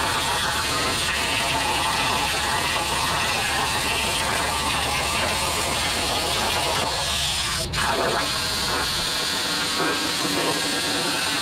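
CNC plasma cutter torch cutting steel sheet: a steady, loud hiss of the cutting arc that breaks off for a moment about two-thirds of the way through and then carries on.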